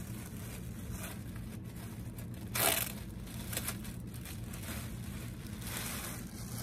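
Clear plastic garment bag crinkling and rustling as a knit sweater dress is pulled out of it, with a sharp louder crackle about two and a half seconds in.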